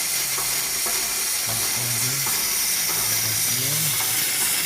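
Ford 6.0 Power Stroke diesel engine running, heard as a steady hiss with faint, regular ticking. The engine has a bad seal at the top of the #7 injector leaking high-pressure oil, the fault behind its no-start when hot.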